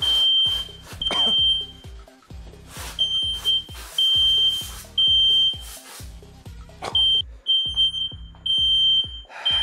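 Music with a steady low beat, overlaid by a shrill beep repeating every second or so, like a smoke alarm, and a few short bursts of hiss.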